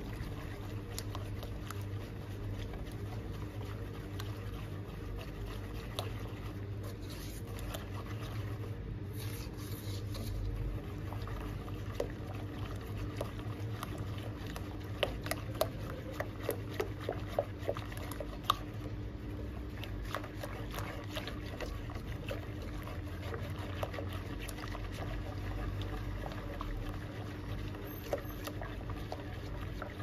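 A silicone-coated balloon whisk beating a liquid cocoa mixture in a granite-coated pot, making a steady wet swishing. Partway through there is a quick run of light clicks as the whisk knocks the pot, all over a steady low hum.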